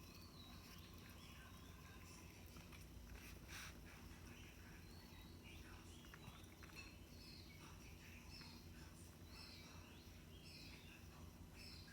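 Near silence with a low steady hum, broken by a few faint, short, high chirps and one faint click about three and a half seconds in.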